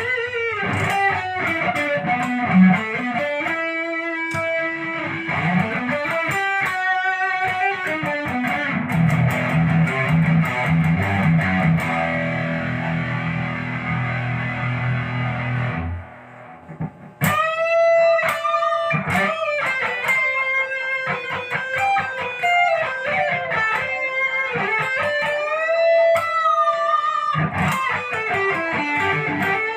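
A white Les Paul-style electric guitar played solo in a sound test: melodic lead lines with string bends. A held low chord rings for several seconds and is cut off about 16 s in, and after roughly a second's gap more bent lead notes follow.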